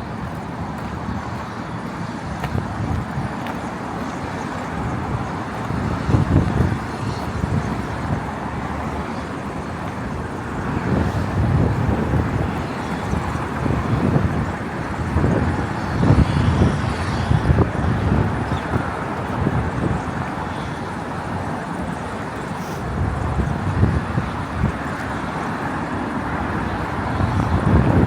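Outdoor city ambience: steady traffic noise from the streets, with irregular low rumbles swelling and fading through it.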